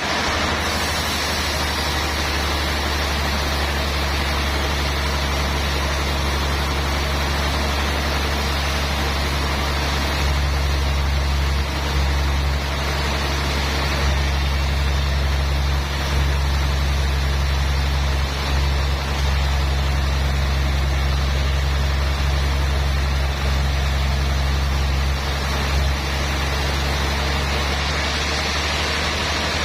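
Sawmill machinery running steadily: a deep continuous hum under an even rushing noise, a little louder from about ten seconds in until near the end.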